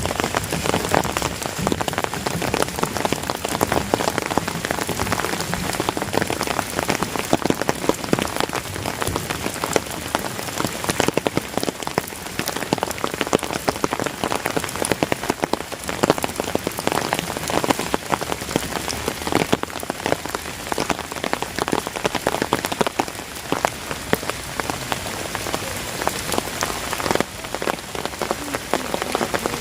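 Heavy rain falling steadily, with dense drops striking surfaces.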